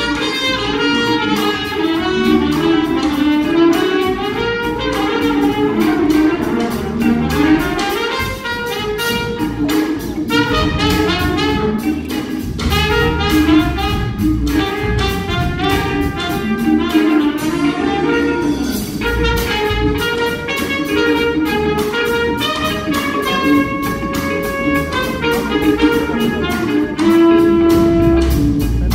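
Live horn band playing: a trumpet played into a microphone leads over saxophones, including a baritone saxophone, with a steady beat.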